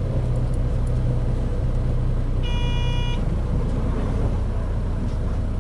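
Engine of a Mitsubishi Fuso KC-MP617K city bus, heard from inside the bus, running with a steady low hum. Its sound is strongly abnormal, far from the model's normal engine note, which suggests some fault or trouble. About two and a half seconds in, a short electronic chime or beep sounds for under a second.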